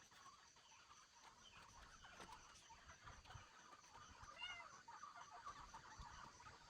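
Faint, quiet farmyard ambience with a steady high pulsing of insects, and one short animal call about four and a half seconds in.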